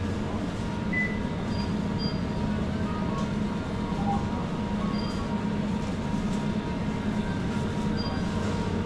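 Supermarket interior ambience: a steady low rumble with a faint continuous hum, with a few brief, faint high beeps scattered through it.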